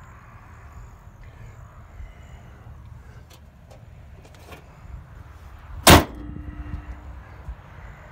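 The hood of a 1965 Buick Riviera slammed shut once, about six seconds in: a single loud metal bang with a short ring after it.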